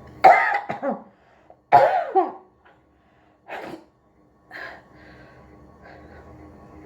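A person sneezing twice, about a second and a half apart, each a sudden loud burst with a falling voice, set off by tickling the inside of the nose with the back end of a matchstick. Two shorter, quieter breaths follow.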